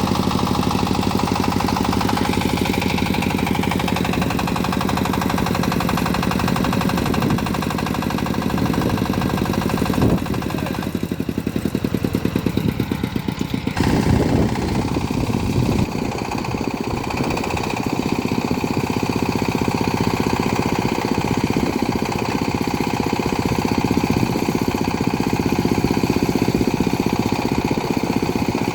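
Mini backhoe loader's engine running steadily as the machine works, its note shifting briefly near the middle, with a couple of knocks there.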